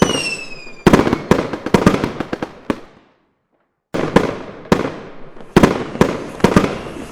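Fireworks going off: a falling whistle fades out in the first second, followed by a string of sharp bangs and crackles. The sound cuts out completely for about a second near the middle, then the bangs resume.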